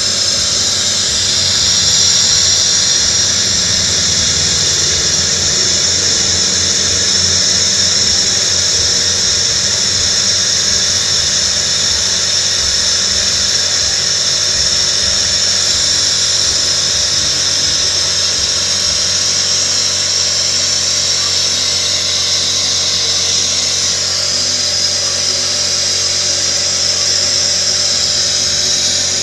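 Honda car engine running steadily under a loud, high-pitched hiss, during an engine flush with a hose feeding cleaning liquid into the engine.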